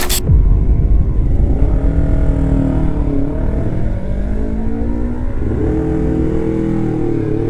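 Racing motorcycle engines revving as the bikes pull away from the pit exit, the pitch rising and dropping several times through the gears, with wind rumbling on the microphone.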